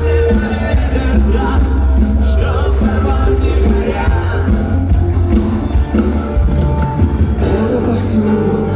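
Live rock band playing loud in a hall, with drums, a heavy bass line and singing.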